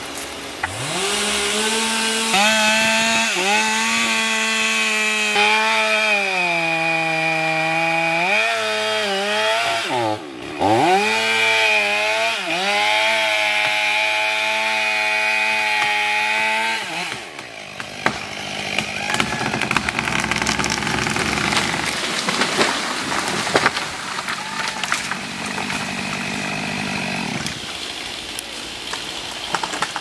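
Stihl chainsaw running at full throttle, boring into the trunk and running out the back cut in felling a dead tree; the pitch sags as the chain loads up in the wood and eases off briefly near the middle. The cutting stops about 17 seconds in, followed by scattered cracks and knocks as the tree comes down.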